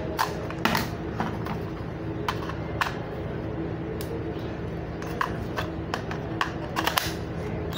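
Scattered plastic clicks and knocks from a cordless drill and its battery pack being handled, as the spent battery is swapped, over a steady low hum.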